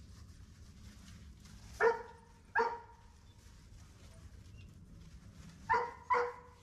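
Giant Schnauzer puppy barking: four short, high barks in two pairs, the first pair about two seconds in and the second near the end.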